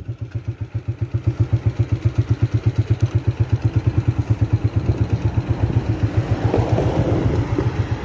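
A vehicle's engine running with an even, rapid low throb, heard from on board the vehicle. Some rougher noise swells in near the end.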